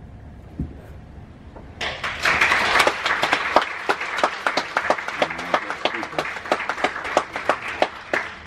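An audience applauding in a hall. The applause breaks out about two seconds in, dense at first, then thins into sparser, separate claps. A single dull thump comes just before it.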